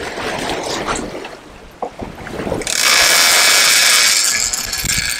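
Shimano Tiagra 130 big-game reel's clicker buzzing as line pays out from the spool, starting about three seconds in and lasting about three seconds, over the hiss of the boat's wake and sea.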